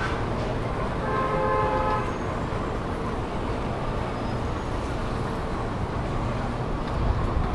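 Street traffic noise with a vehicle horn sounding once for about a second, about a second in. The low traffic rumble swells near the end.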